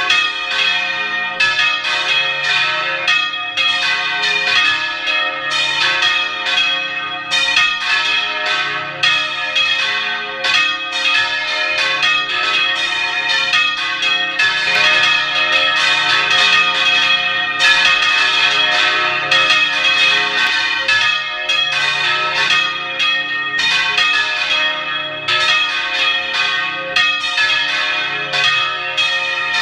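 Several church bells swung in full rotation (volteo), heard at close range from inside the bell tower. Their strikes come fast and overlap into a continuous, loud peal, with the tones ringing on between blows.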